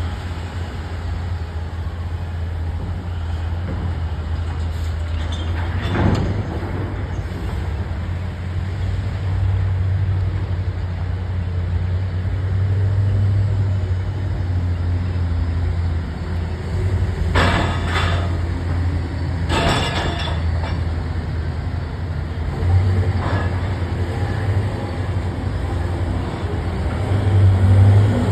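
Komatsu D155 crawler bulldozer's diesel engine running with a steady low drone, with a few sharp metallic clanks, two of them close together about two-thirds of the way in.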